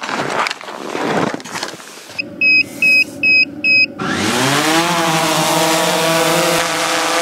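DJI Phantom 4 Pro V2.0 quadcopter giving four short high beeps, then its propeller motors spin up about four seconds in with a rising whine. The whine levels off into a steady high buzz as the drone lifts off and hovers.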